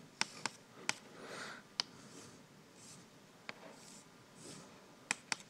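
Chalk on a blackboard as a diagram is drawn: several sharp, faint taps at irregular intervals, with soft scratchy strokes between them.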